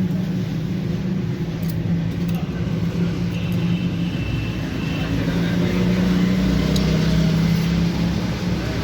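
A motor vehicle engine running steadily, a low hum that swells slightly a few seconds in, with a few faint clicks.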